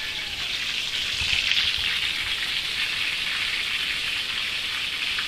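Pork chops frying in hot oil in a pan: a steady sizzle.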